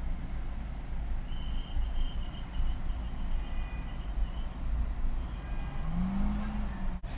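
Road traffic at a busy city intersection: cars driving through with a steady, heavy low rumble of engines and tyres. About six seconds in, one vehicle's engine note rises briefly.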